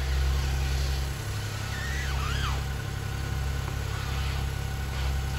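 Ford Bronco Sport's three-cylinder engine idling steadily while the steering is turned back and forth at a standstill, with a few short high squeaks that rise and fall over the hum.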